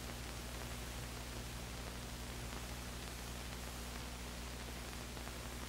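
Steady hiss with a low electrical hum underneath, the background noise of an old film soundtrack; no other sound.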